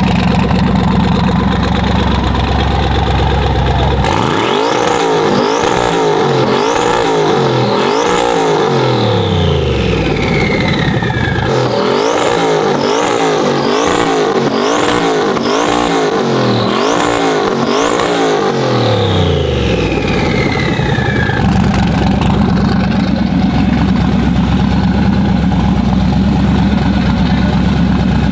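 Twin-turbocharged Chevrolet Silverado pickup engine idling, then revved in two runs of quick throttle blips, about five and then about seven, each blip carrying a rising turbo whistle. A falling turbo whine follows each run as the engine drops back to a steady idle.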